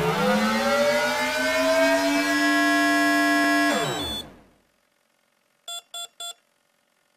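Motor-like whine rising in pitch, holding steady, then winding down and dying away about four seconds in. Near the end come three short, quick electronic beeps.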